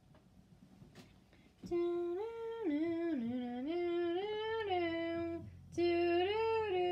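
A person humming a little tune in held notes that step up and down, starting about two seconds in after a couple of faint clicks, with a short break near the end.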